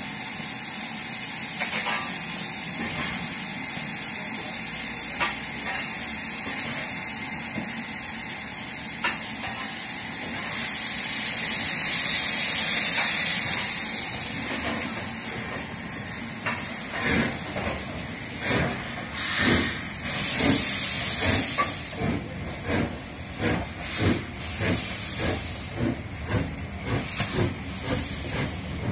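LMS Royal Scot class 4-6-0 steam locomotive 46115 Scots Guardsman pulling away from a stand, steam hissing from its open cylinder drain cocks. The hiss swells loud about halfway, then exhaust beats start and quicken as the engine gets the train moving.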